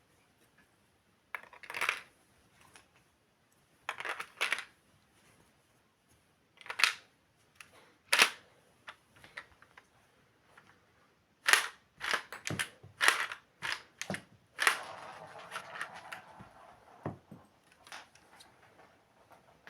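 Plastic clicks and clacks from a LEGO brick-built pump-action shotgun being reloaded and worked by hand, in short bursts a few seconds apart. About two thirds of the way through, a quick run of clacks is followed by a second of rustling.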